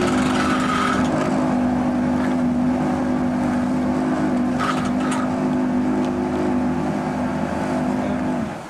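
Fishing boat's motor running steadily at speed with a constant pitch, then dropping away near the end as it is throttled back.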